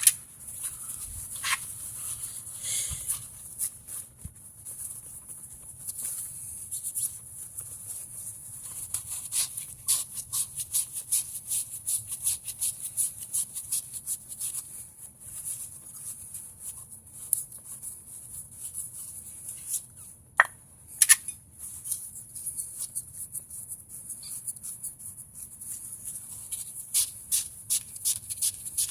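Brake caliper parts being wiped clean by hand with a shop towel: irregular scuffing and small clicks, with two sharper knocks about two-thirds of the way through, over a steady high hiss.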